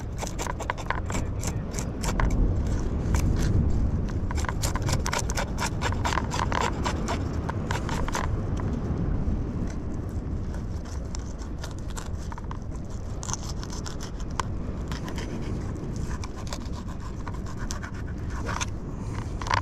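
Knife scraping and cutting a small fish on a plastic cutting board to make bait strips: a quick run of short scrapes for the first half, then sparser strokes, over a steady low rumble.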